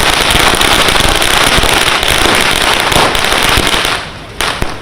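Firecrackers bursting in rapid, continuous crackling, loud, cutting off about four seconds in, with one more crack shortly after.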